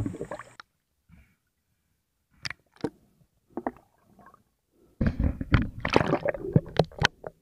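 Underwater knocks and rubbing on the camera housing, with some water gurgling: a few scattered knocks, then a dense rush of them about five seconds in.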